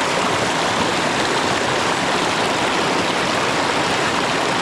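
Creek water running, a steady even rush with no breaks.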